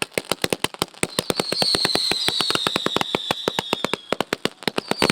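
Consumer fireworks going off: a rapid, even string of sharp cracks, about nine a second, joined about a second in by a high whistle that slowly falls in pitch, with another whistle starting near the end.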